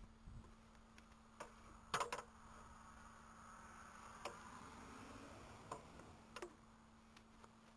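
A few faint, scattered clicks and taps, about five or six of them, over a low steady hum.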